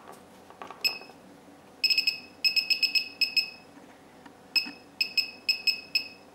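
Digital function generator beeping, a run of about fifteen short high beeps in quick clusters as its output amplitude is stepped down.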